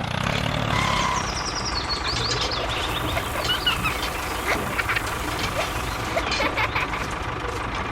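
A small engine running steadily with a low, throbbing rumble, with short bird calls chirping over it.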